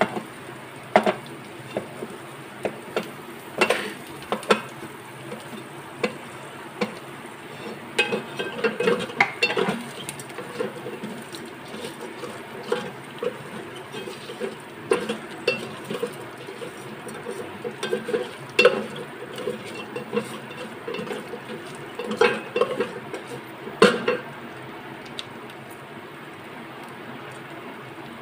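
Wooden spatula scraping and knocking on a steel plate and an electric cooker's metal pot as chopped okra is pushed in and stirred with frying onions and spices. The knocks are irregular, with a steady sizzle of oil beneath them, and they thin out near the end.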